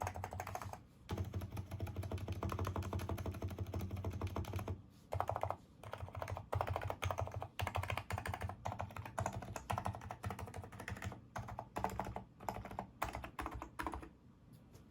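Typing on a NIZ Micro82 keyboard with 35 g electrostatic capacitive switches: fast, dense runs of key presses broken by brief pauses, stopping about a second before the end.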